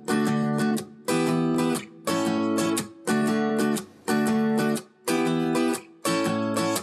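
Theme music of strummed acoustic guitar: a chord about once a second, each held briefly and then cut short.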